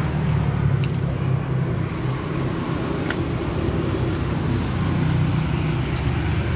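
Refrigerator compressor running with a steady low hum. Two light sharp clicks come about one and three seconds in.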